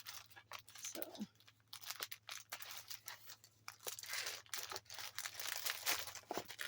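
Plastic packaging of a diamond painting kit crinkling and rustling as it is handled, with many small irregular crackles and clicks.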